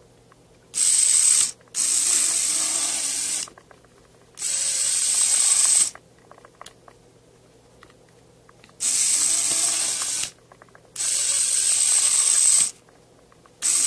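The tiny electric motor and gearless friction drive of an HO-6.5 narrow-gauge model locomotive running in short bursts. It makes a high-pitched whirring buzz with a steady high whistle in it, starting and stopping about six times as the model runs and halts.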